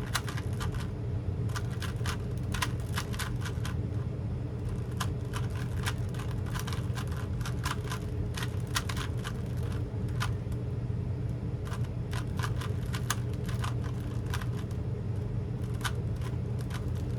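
Plastic Rubik's-type puzzle cube being turned fast by hand: quick, irregular clicks of the layers snapping round, over a steady low hum.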